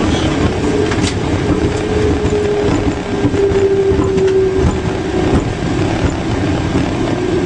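Cockpit noise of a Boeing 737 rolling on the ground just after landing: a steady rumble of the wheels on the pavement under a humming engine tone, with a couple of faint knocks.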